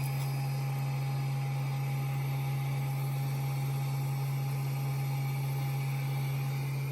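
Steady low machine hum with a faint, even whine above it, unchanging throughout.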